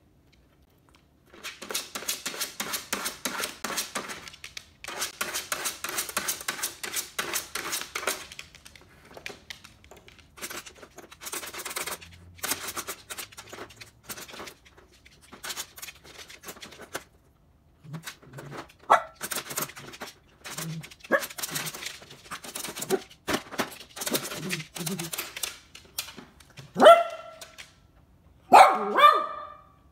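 A dog eating dry kibble from a bowl on a hard floor: rapid crunching and clattering in runs with short pauses. A few barks near the end, louder than the eating.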